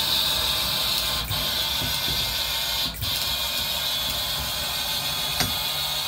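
Exploradome shutter automation motor running steadily, driving the cable spools as the observatory dome's shutter closes, with a single click about five seconds in.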